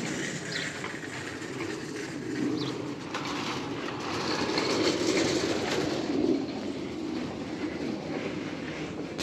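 A metal shopping cart rolls and rattles over asphalt, loudest about five seconds in as it passes close by.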